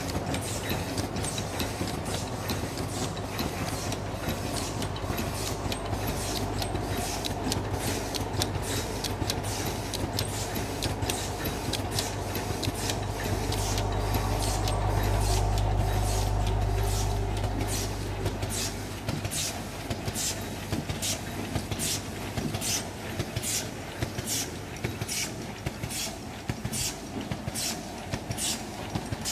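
Eraser packing machine running, with a steady motor hum and regular mechanical clicks about twice a second as it cycles through wrapping. The hum grows louder in the middle, then eases.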